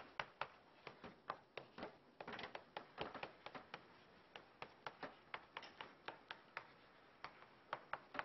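Chalk writing on a chalkboard: faint, quick, irregular taps and short scrapes of the chalk stick, a few each second.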